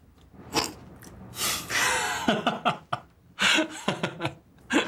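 A man laughing in short, breathy bursts.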